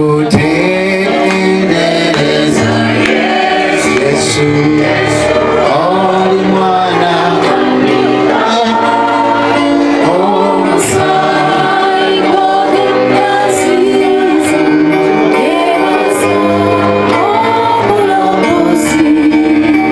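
Gospel song: a choir singing over instrumental backing.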